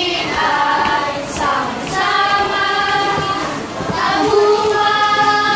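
A group of children singing together in unison, holding long notes.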